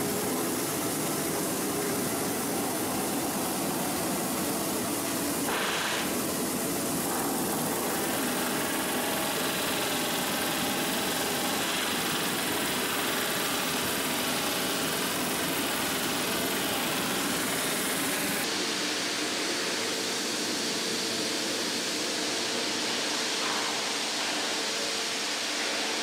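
Steady industrial noise of ship-repair work under a hull: machinery running and metal being cut. About eighteen seconds in the sound thins, losing its deepest and highest parts.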